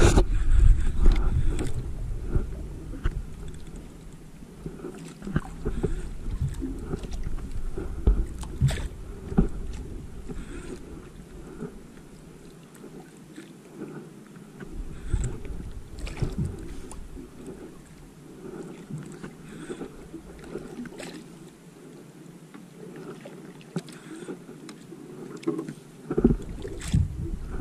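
Wind gusting on the microphone, heaviest in the first few seconds and again near the end, over water moving against a small boat. Scattered faint clicks come from a Shimano Ocea Jigger reel being cranked.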